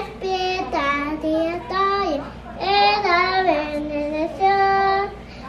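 A young boy singing in a high voice, holding long notes that step up and down in pitch, in several short phrases with brief pauses between them.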